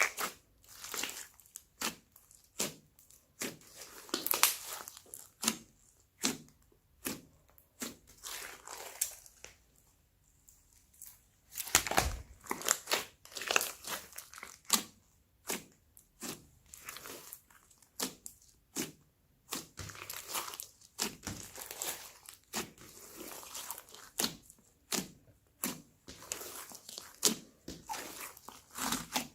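Store-bought slime being mixed by hand, squeezed and folded, giving irregular crackles and pops with a brief lull about ten seconds in.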